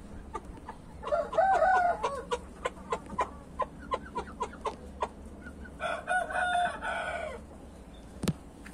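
A gamefowl rooster crowing twice, with short rapid clucks in between. A single sharp click comes near the end.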